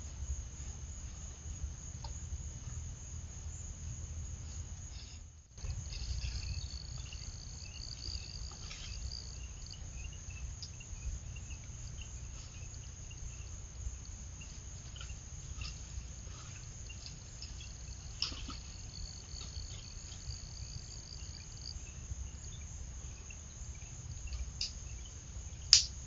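Insects trilling: a steady high-pitched trill throughout, joined twice for a few seconds by a second, lower buzzing trill. A low rumble sits underneath. The sound briefly cuts out about five seconds in, and a sharp click comes just before the end.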